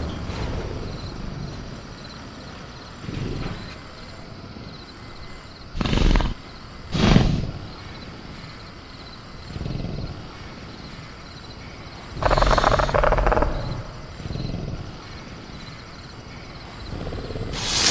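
Sound-effect velociraptor growls and snorts from a caged creature: two short sharp calls about six and seven seconds in, and a longer growl about twelve seconds in. Beneath them runs a steady faint bed of night crickets.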